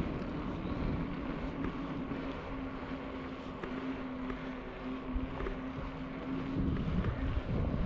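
Wind buffeting the microphone and tyres rolling over asphalt as a bicycle rides along a paved path, with a steady low hum through most of it and a few faint ticks.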